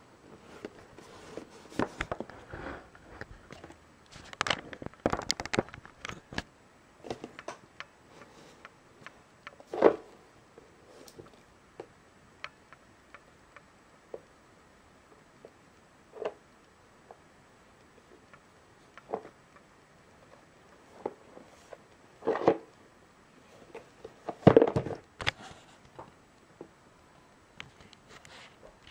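Hard clear plastic retail packaging being handled and turned in the hands, making irregular clicks, taps and rustles. It knocks a few times more loudly, about a third of the way in and twice near the end.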